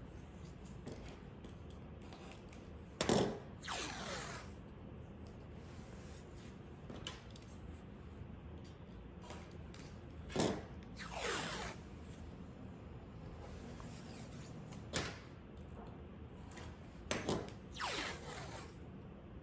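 Masking tape being pulled off its roll in three short pulls, each starting with a sharp click and trailing off in a falling rasp of about a second.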